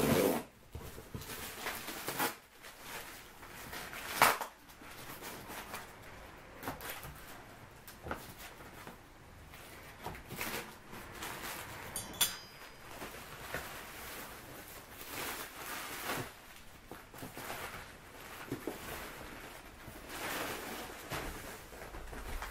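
Grey plastic wrapping and packing tape being torn and pulled off a cardboard box: irregular rustling and ripping, loudest about four seconds in.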